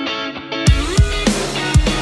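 Background music: sustained guitar notes, then drums and the full band come in about two-thirds of a second in, with heavy drum hits.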